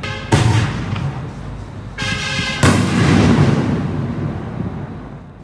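Black Cat 5-inch canister artillery shells going off: two loud bangs about two and a half seconds apart, each dying away in a long echo.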